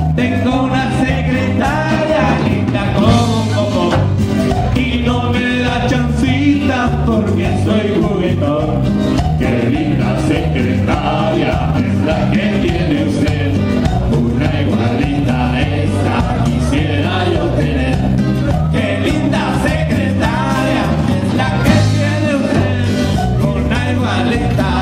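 Live band playing amplified dance music with drums, bass and electric guitar, a steady beat with a heavy bass line.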